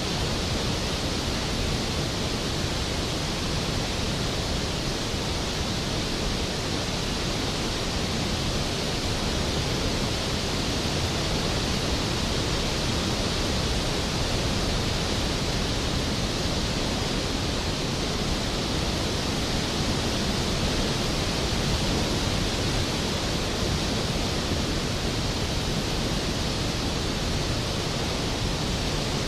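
Skógafoss waterfall: the steady, dense rush of a large waterfall plunging into its pool, an unbroken roar with no separate splashes or breaks.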